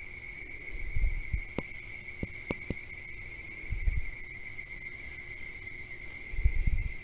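Insects singing, a steady unbroken high-pitched drone. A few low thumps and rumbles come through, about a second in, near the middle and near the end, with a few soft clicks between.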